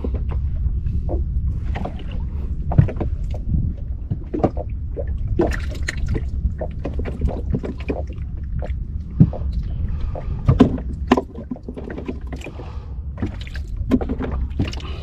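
Water slapping and lapping against the hull of a small wooden sampan at sea, over a steady low rumble of wind and waves, with scattered irregular knocks and clicks.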